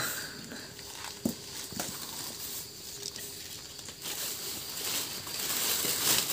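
Hands rustling through a plastic basin full of freshly picked bứa leaves and stuffing them into a plastic bag that crinkles, with a couple of light knocks early on and louder rustling from about four seconds in.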